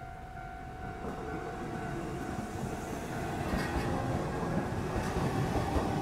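JR Nambu Line electric commuter train passing close by at a level crossing: a steady rumble of wheels on rail that grows louder as the cars go past. A steady tone, from the crossing's warning signal, stops about a second in.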